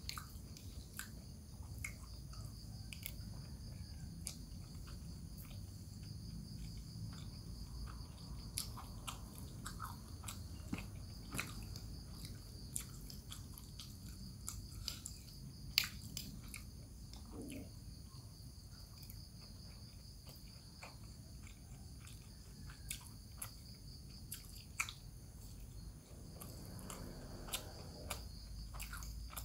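Close chewing and mouth sounds of a person eating rice with stewed bamboo shoots, with scattered sharp clicks of a metal spoon against the bowl.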